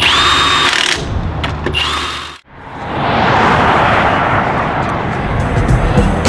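Pneumatic impact wrench running on a camper wheel's lug nuts in two bursts, a long one and then a short one, each whining up to a steady pitch. After a sudden cut, a broad rushing noise swells and slowly fades.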